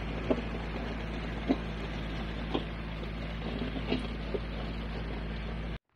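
Kubota tractor's diesel engine running steadily as it drags a land leveler through asphalt millings, with a few sharp knocks spread through. The sound cuts off suddenly near the end.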